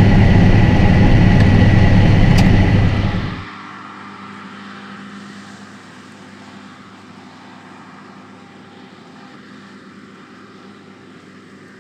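John Deere S680i combine harvester running in the field, loud and steady with a deep engine hum. About three seconds in it drops abruptly to a much fainter steady hum.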